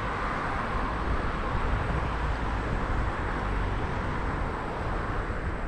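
Steady rumbling noise of a scooter ride: air rushing past and wheels rolling on pavement, with no distinct events.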